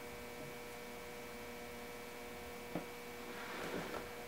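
Steady electrical hum in a quiet room, with a single soft tap about three seconds in and brief faint rustling near the end as a hand takes hold of a sneaker on a table.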